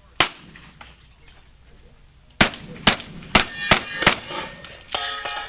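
Six close gunshots. One comes just after the start, then after a two-second pause a quick string of five about half a second apart, with a ringing tone lingering after the last of them.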